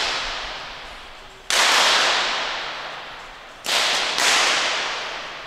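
Shots from .22 rimfire free pistols: one about a second and a half in, then two close together near four seconds, each sharp crack followed by a long echo ringing out in the range hall.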